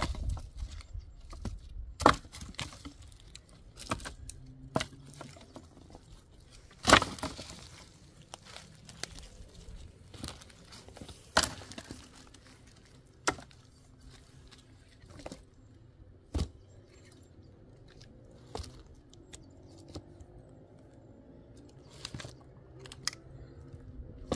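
Dry sticks and branches knocking together and cracking as they are handled and laid in a pile on rocky ground: irregular sharp clicks and cracks, the loudest about two and seven seconds in.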